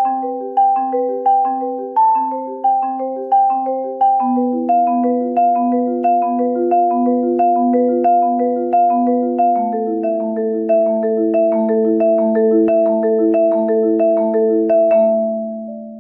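Marimba played with soft yarn mallets: a steady pattern of rolled chords with regular accents, the harmony stepping down a couple of times, then a final chord ringing out and fading near the end.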